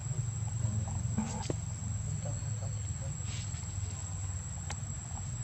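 A steady high-pitched insect drone over a low rumble, with a few faint clicks and rustles.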